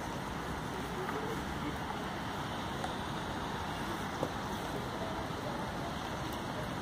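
Steady outdoor ambience: a low, even rumble of distant city traffic with faint far-off voices.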